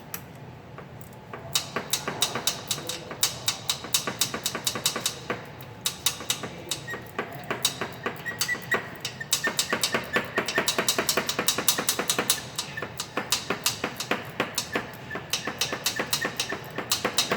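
A ratchet wrench clicking fast in runs as a nut on the A/C compressor line is worked off.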